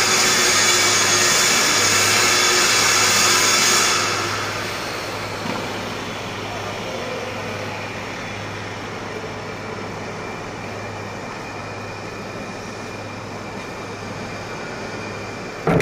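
Grinder running on metal with a high whine and hiss, shut off about four seconds in and winding down, leaving a steady low hum of workshop machinery.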